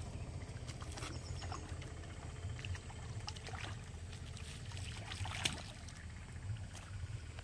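A hooked fish splashing and thrashing at the surface of a pond as it is played on a fishing rod, in short irregular splashes, the sharpest about five seconds in as it is lifted from the water. A steady low rumble runs underneath.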